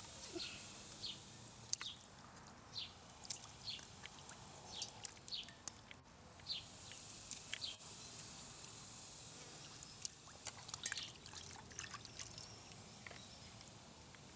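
Water splashing and dripping in a stainless steel bowl as a raw octopus is rinsed by hand. Soft, irregular sloshes and drips come more densely in the second half, over short high chirps that repeat throughout.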